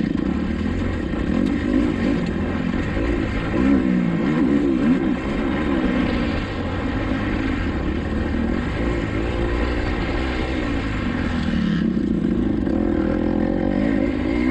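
Kawasaki KX250XC dirt bike's engine revving up and down over and over, the pitch rising and falling every second or so as the throttle is worked. The bike eases off about twelve seconds in, then picks up again.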